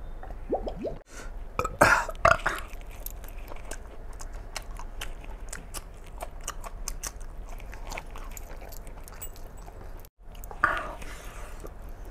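Close-miked chewing and biting of mutton, rice and green chilli, with many wet mouth clicks and smacks; a few louder bites stand out about two seconds in and again near the end.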